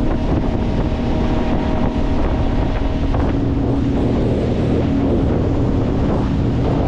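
25 hp Mercury four-stroke outboard motor running at a steady speed underway, its even hum mixed with wind buffeting the microphone and water rushing past the hull.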